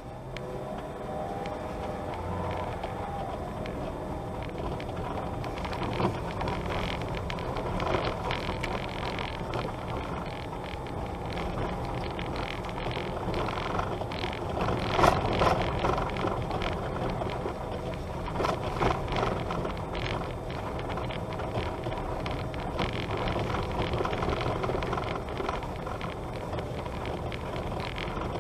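Vehicle driving over a rough, rutted dirt road: a steady rumble of tyres and running gear, with frequent knocks and rattles as it jolts over the ruts. The sharpest jolt comes about halfway through.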